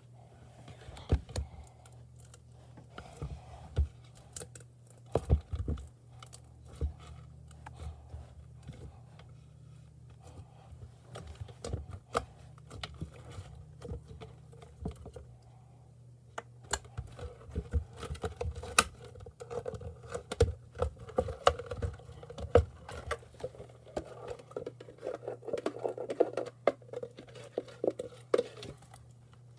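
Hands squishing and poking slime: a long run of quick, sticky clicks and pops that come thicker and louder in the second half.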